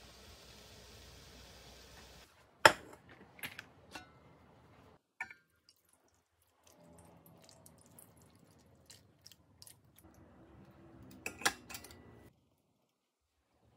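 Kitchen handling sounds at a steamer pot: a sharp clank about two and a half seconds in, then scattered knocks. Later, cold water is poured over the hot steamed songpyeon, giving a soft splashing patter, with a few sharp clacks near the end.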